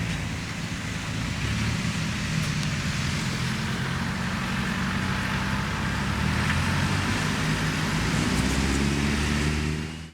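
Diesel engine of rice-harvest farm machinery running steadily, its pitch rising a little near the end before it cuts off suddenly.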